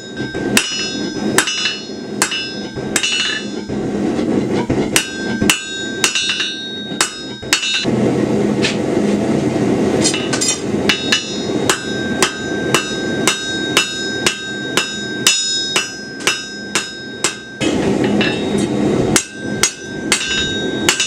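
Blacksmith's hand hammer striking hot steel stock on an anvil while tapering a bar end: quick runs of ringing blows, about two to three a second, with a couple of short pauses, over a steady low rushing noise.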